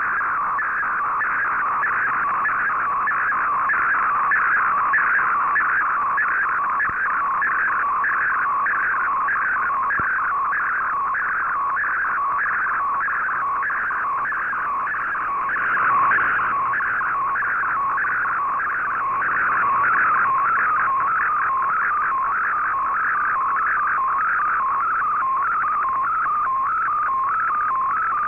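MFSK digital picture signal received on shortwave through the Icom IC-R8600's speaker: a warbling, whistling tone that repeats its pattern about twice a second, one sweep per picture line, as the image is sent. A short rush of noise comes about halfway through.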